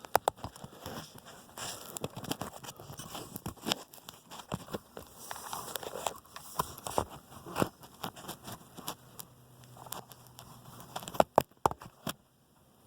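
Handling noise as a camera is adjusted and set in place: irregular clicks, knocks and rustling, with a quick cluster of sharp knocks near the end.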